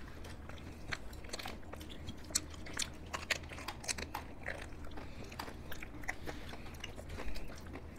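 Faint, irregular wet mouth clicks and lip smacks of people eating ice cream, licking an ice lolly and eating soft ice cream from small cups.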